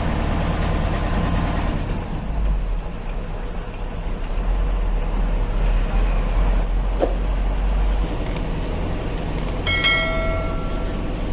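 Heavy truck running on the road: a steady low engine and road rumble. A faint ticking repeats evenly, and about ten seconds in a short tone with several overtones sounds for under a second.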